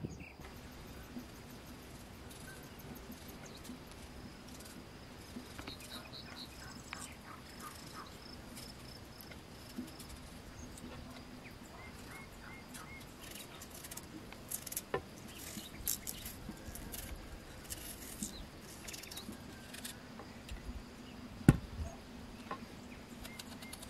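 Outdoor ambience of a steady insect drone with a few bird chirps. In the second half, a knife scrapes and cuts as raw potatoes are peeled and sliced, with one sharp knock near the end.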